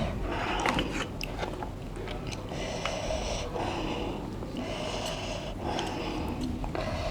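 Close-miked eating of spicy instant noodles: chewing with many small wet mouth clicks. Three drawn-out mouth sounds, each about a second long, come about every two seconds.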